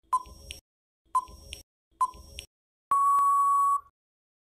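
Countdown timer sound effect: three short beeps a second apart, then one longer steady beep of about a second marking the end of the countdown.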